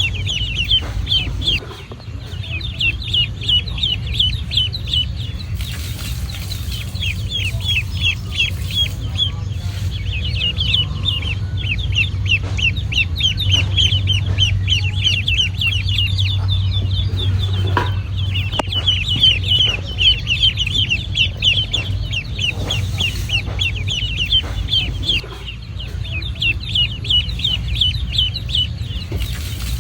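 Ducklings peeping nonstop in rapid, high chirps, many calls a second, with short lulls about two seconds in and near the end. A steady low hum runs underneath.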